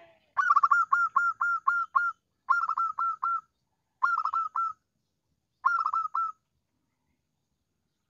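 Zebra dove (perkutut) cooing: four phrases of quick, clipped repeated coos. The first phrase is the longest, and the song stops a little after six seconds in.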